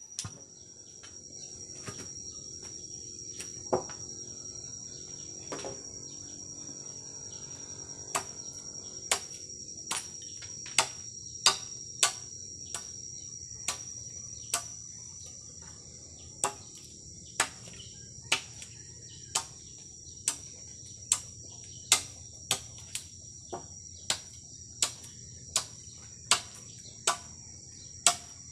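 Machete blade chopping at a bamboo pole: sharp knocks, few and irregular at first, then about one a second in the second half. Under them runs a steady high insect drone.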